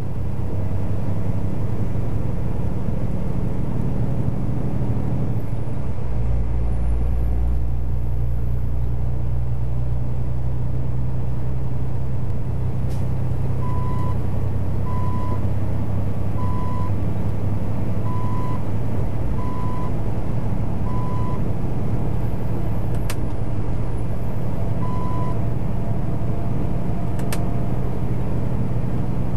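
Inside a semi-truck cab on the move: the steady low drone of the diesel engine and road noise, getting heavier a few seconds in. In the middle a short high electronic beep repeats about every second and a half, six times, then once more later, with a few sharp clicks.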